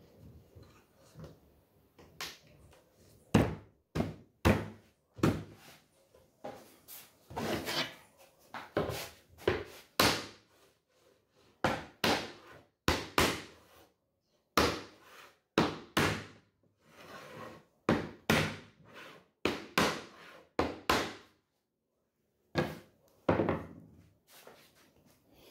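Wooden cabinet panels being knocked together by hand as the shelves are fitted into the sides of a shoe rack: a long series of irregular sharp thuds, broken by a couple of short pauses.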